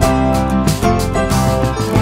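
Background music: a light tune on plucked strings, with a new note every fraction of a second.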